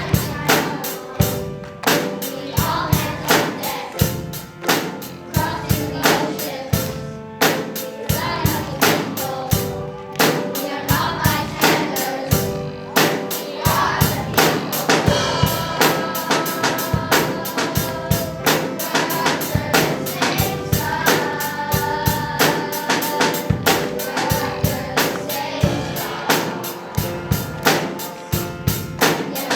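Music: a song with singing over a steady drum beat.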